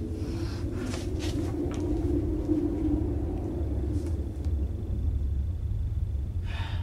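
A low, steady rumble, with a few brief rustling noises in the first couple of seconds and a faint thin high tone entering about halfway through.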